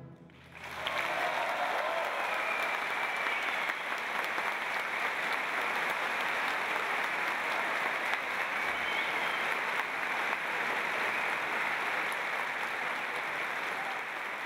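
Audience applauding. The clapping starts about half a second in and goes on steadily, easing slightly near the end.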